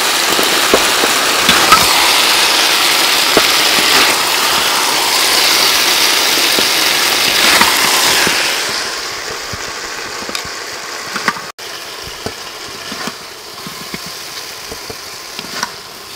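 Chicken wings sizzling in thick tomato sauce in a wok, with a metal ladle clicking and scraping against the pan as they are stirred. The sizzle dies down about eight seconds in, leaving a quieter hiss with occasional clicks.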